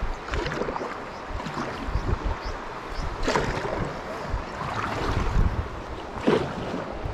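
Kayak paddle blades splashing into river water in irregular strokes, roughly one every second or two, over a low wind rumble on the microphone.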